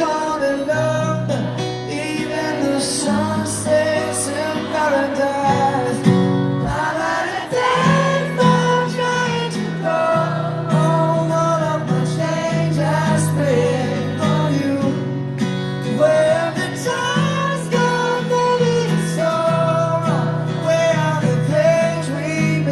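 Live pop-rock band music with guitar, bass and singing, as heard from within a concert audience.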